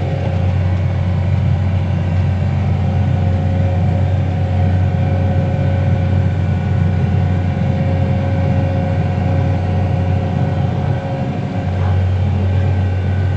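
Tractor engine running steadily under load while pulling an air seeder, heard from inside the cab. A low drone sits under several steady whining tones, with a brief dip about eleven seconds in.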